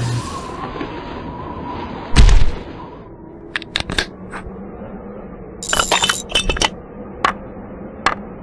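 Sound effects of rock being dug and broken with a shovel and pickaxe: a heavy thud about two seconds in, then sharp clicks and a burst of clinking, crumbling rubble around six seconds in, with single taps near the end.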